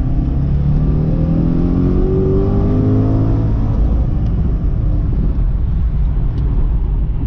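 Corvette C6 Z06's 7.0-litre LS7 V8 accelerating hard in second gear, its pitch climbing steadily for about three and a half seconds before the rise stops and the engine eases off.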